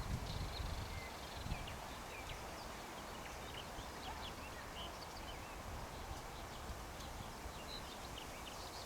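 Songbirds singing some way off, a scatter of short chirps and whistles, over a low rumble that is heavier in the first second and a half.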